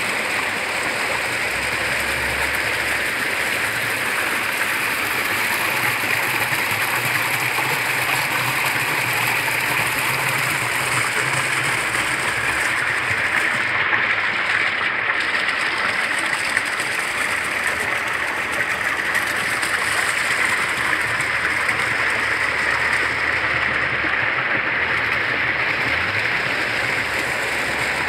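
Steady rushing and splashing of water at a water-driven Persian wheel: the canal current running under the wheel and streams of water pouring from its lifted buckets.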